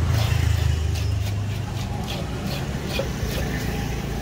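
A motor vehicle engine idling with a low steady hum that drops back about a second in, with short repeated scrapes of a knife working a fish on a wooden block.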